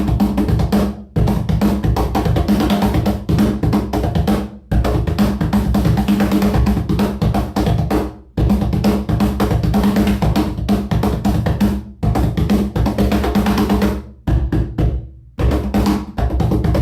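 Wooden cajon played by hand in a steady rhythmic groove of bass and slap strokes, with a few short breaks. Its front plate is freshly glued down and its snare wires are damped with electrical tape, so it sounds woody with a deep bass and little snare buzz.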